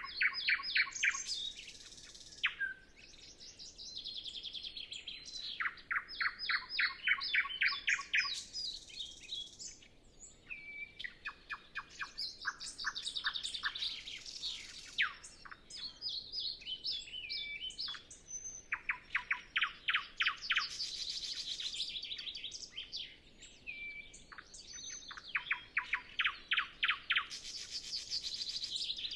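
Nightingale singing alone: a run of separate phrases, each a rapid string of repeated sharp notes or trills, some ending in whistles, with short pauses between them.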